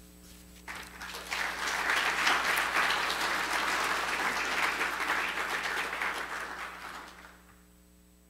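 Congregation applauding, a dense patter of many hands clapping. It starts about a second in and dies away near the end.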